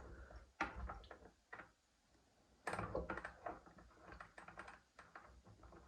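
Light clicks and taps of small tap parts and a hand tool being handled while a tap cartridge and head are refitted: a few clicks, a short pause, then a quick run of clicking for about two seconds.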